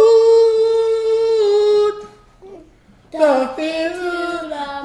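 A person singing, holding one long high note that breaks off about two seconds in; after a short pause the singing starts again with sliding, falling pitches.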